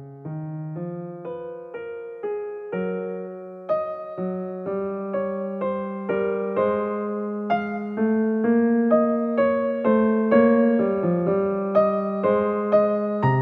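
Background piano music: a gentle melody of evenly struck notes, about two a second, over sustained chords, growing louder over the first several seconds.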